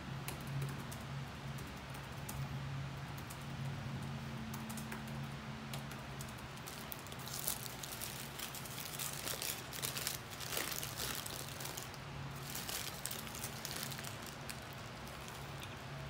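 Light tapping on a laptop keyboard, then the crinkling of a paper burger wrapper as it is handled and unwrapped, dense from about seven seconds in. A steady low hum runs underneath.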